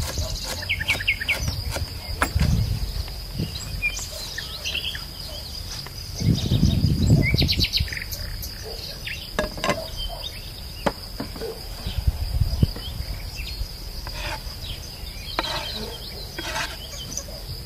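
Insects trilling on one steady high note, with birds chirping now and then. Low thumps and knocks come and go, the loudest a rumbling stretch about six seconds in.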